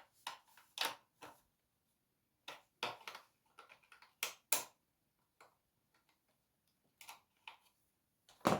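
Vacuum cleaner parts being handled: scattered light clicks and knocks at uneven intervals, a little over a dozen of them.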